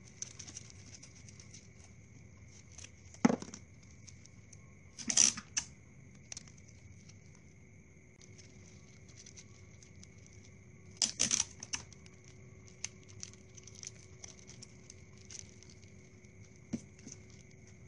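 Hands handling a craft palm tree made of plastic drinking straws and floral tape: scattered light clicks and rustles, with a few louder knocks about three, five and eleven seconds in.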